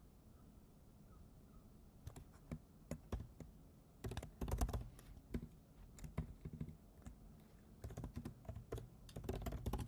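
Typing on a computer keyboard: about two seconds in, the keys start, short clicks coming in irregular bursts of keystrokes.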